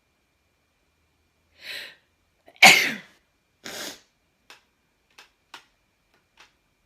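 A person sneezes once. A short in-breath comes first, then one loud sneeze about two and a half seconds in whose voice falls in pitch, followed by a breath out and a few short sniffs.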